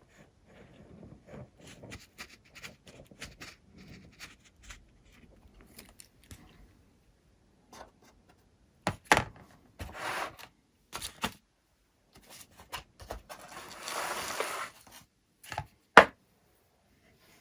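Hand work at a workbench: intermittent scraping and rubbing with scattered sharp clicks and knocks, two of them loud, and a longer scraping passage a little after the middle.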